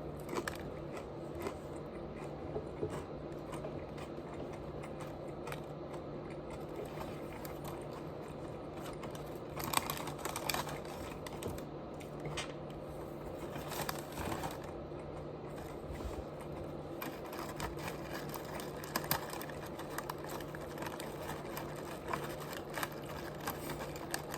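Close-miked chewing and crunching of crispy fried chicken: irregular small crisp clicks, with a few louder bursts of crunching, over a steady low hum.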